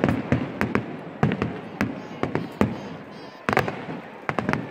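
Festival fireworks going off: a rapid, uneven string of sharp bangs and cracks from bursting aerial shells. They thin out briefly in the middle, then a heavy bang about three and a half seconds in starts another run of reports.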